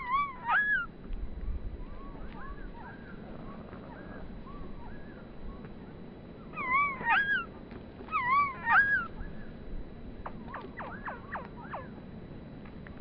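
Small birds calling: short nasal pitched calls that rise and fall, given in quick groups of two or three, with a run of rapid downward-sweeping chip notes near the end.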